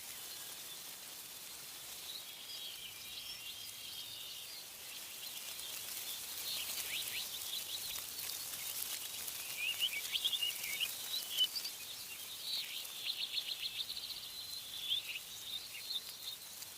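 Several songbirds chirping and trilling, growing busier about six seconds in, with a quick run of rapidly repeated notes later on, over a steady hiss of wind in the trees.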